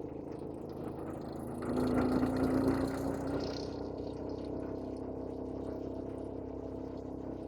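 A vehicle engine running steadily. Shortly before two seconds in it grows louder for about a second, with a rush of noise over a slightly rising hum, then settles back.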